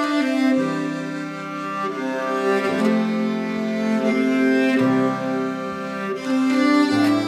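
Background music: a slow piece on bowed strings, long held notes and chords that change every second or two.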